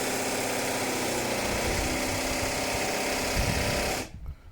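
Small electric power tool running steadily at speed, then cut off about four seconds in.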